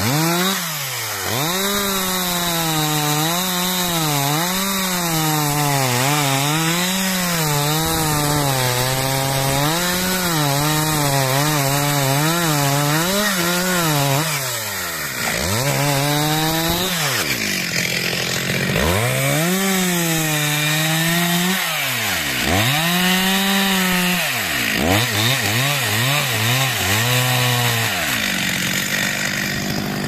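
Stihl MS 361 two-stroke chainsaw cutting wood. Its engine speed wavers up and down under load and drops back several times, with a run of quick revs near the end.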